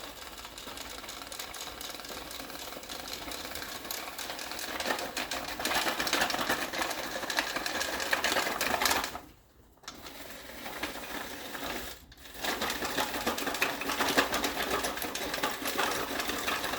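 The small electric drive motors and gearboxes of a remote-controlled QBot whirring with a fast ticking as it drives and turns. The sound stops briefly twice, about halfway through and again a few seconds later.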